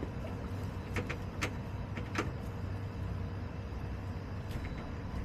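Backyard hens foraging in wood-shaving litter: a handful of short pecking and scratching clicks, scattered irregularly, over a steady low hum.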